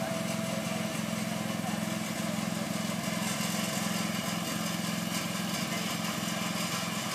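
John Deere riding lawn tractor's engine running steadily as the tractor drives slowly across the grass.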